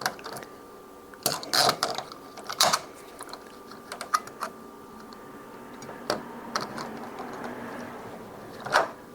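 Door knob handle and lock hardware being fitted back on by hand: irregular light clicks and knocks of metal parts, with a stronger knock near the end.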